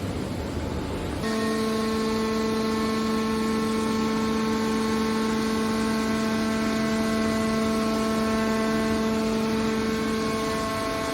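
Hydraulic scrap car baler running, its machinery noise joined about a second in by a steady, unchanging whine.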